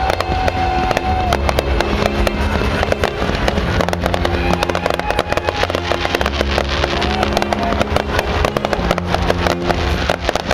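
Aerial fireworks bursting and crackling in rapid, irregular succession over loud music with a steady bass line.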